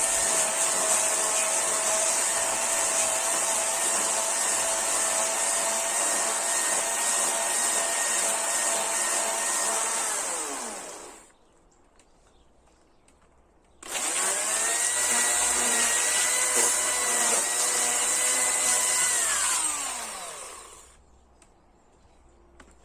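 Electric chainsaw running at a steady high pitch in two long bursts, each ending as the trigger is released and the motor winds down with a falling pitch, with a short quiet gap between them.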